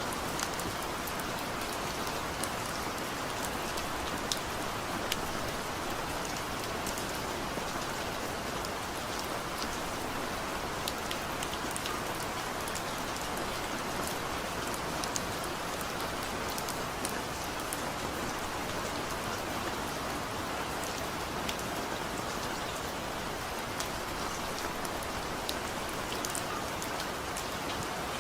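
Steady rain falling, a continuous hiss with many individual raindrops ticking sharply on a surface.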